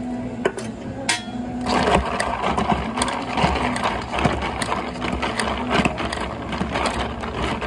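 Ice clinking and rattling in a plastic cup as an iced drink is stirred with a straw through its domed lid: a quick, irregular run of clicks starting about a second and a half in, over a steady low hum.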